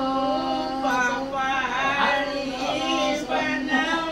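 A high voice singing a melody, with a steady held note underneath.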